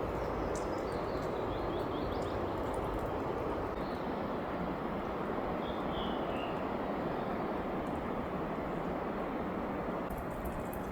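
Steady rain falling, an even rushing hiss, with a few faint bird chirps about a second, four seconds and six seconds in.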